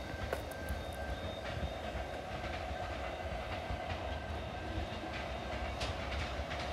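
Queensland Rail New Generation Rollingstock (NGR) electric multiple unit approaching along the track, a steady hum and rail noise with a low rumble and scattered light clicks.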